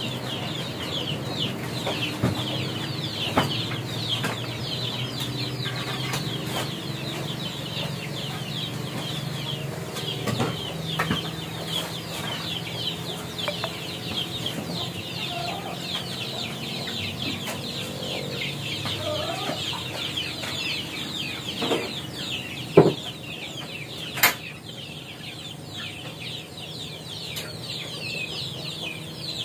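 Chickens calling without pause, a dense chorus of many quick, high, falling cheeps. A few sharp knocks or clatters cut through it, the loudest two near the end.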